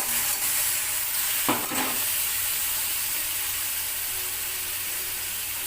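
Chopped tomatoes sizzling in hot oil and ghee in a pan, a steady frying hiss, while a utensil stirs them and scrapes against the pan a few times, most clearly about a second and a half in.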